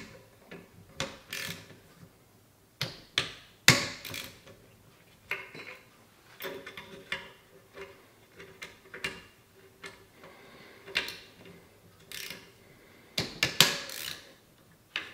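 Torque wrench with a hex bit being fitted and turned on the action screws of a Tikka T3x action in an MDT XRS chassis: irregular metallic clicks and knocks as the screws are tightened, with tool handling in between.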